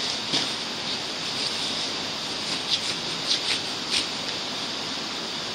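Steady rushing hiss, with a few faint light clicks from a small handheld device being handled partway through.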